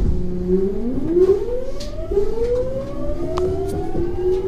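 Kintetsu 3200 series electric train pulling away from a stop: the VVVF inverter traction motors whine, climbing in pitch, dropping back and climbing again in steps as the train accelerates, over the low rumble of the running gear.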